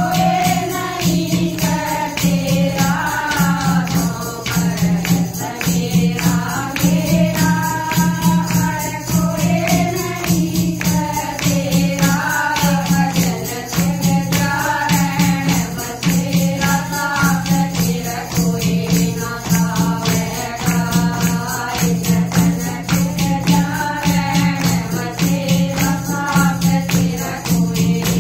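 Women singing a Haryanvi bhajan together, with hand clapping and a clay pot (ghara) played as a drum keeping a steady beat.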